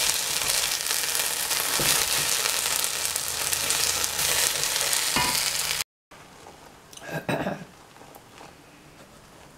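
Dark batter spread thin in a frying pan, sizzling loudly and steadily. An abrupt cut about six seconds in leaves a much fainter sizzle, with a short clatter a second later.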